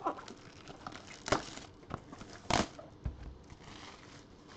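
Gloved hands handling a plastic-wrapped cardboard trading-card box: a few sharp crinkles and taps, the loudest about a second and a half apart, then a low thump about three seconds in as the box is set down on the table.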